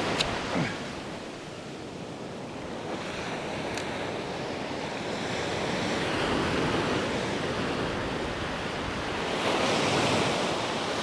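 Ocean surf washing onto a sandy beach, with wind buffeting the microphone; the wash swells about six seconds in and again near the end. A short click sounds just after the start.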